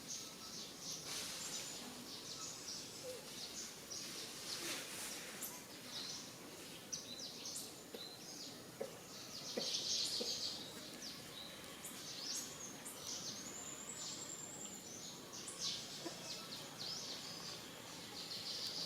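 Many short, high-pitched animal chirps and squeaks over a steady outdoor background hiss, with one louder burst about ten seconds in and a longer held squeal around thirteen seconds.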